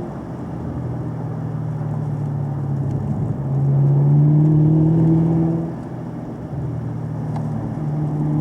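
Car engine pulling and easing off in turn: the engine note drops at the start, comes back louder and steady a few seconds in, eases off again after about six seconds, and builds once more near the end.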